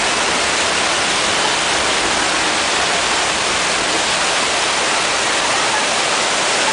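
A torrent of water cascading down right beside the tram: a steady, loud rush of falling and splashing water.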